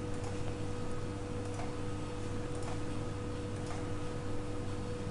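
A few faint computer-mouse clicks at uneven intervals, over a steady electrical hum and microphone hiss.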